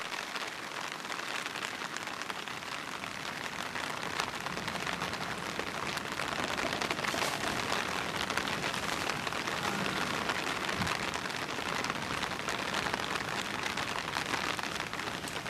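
Steady rain falling, a continuous hiss of many small drop impacts.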